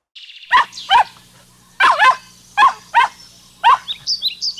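A dog barking: about seven short barks, mostly in pairs, then a quick run of higher yips near the end.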